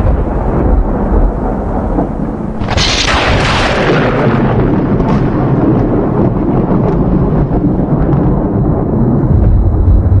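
Thunder: continuous loud rolling rumble, with a sharp thunderclap crack about three seconds in that fades back into the rumble, and deep rumbling swelling again near the end.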